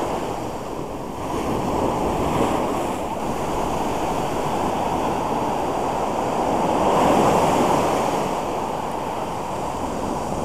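Shore break: small waves breaking and washing up the sand in a steady rush of foam, the wash swelling loudest about seven seconds in.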